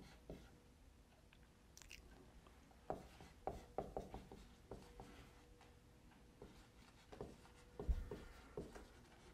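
Marker writing on a whiteboard: faint, irregular short strokes and taps, starting about three seconds in.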